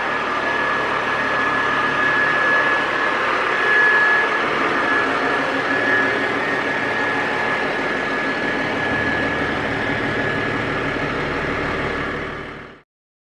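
A heavy vehicle engine running steadily, with a steady high-pitched whine over it. It cuts off abruptly near the end.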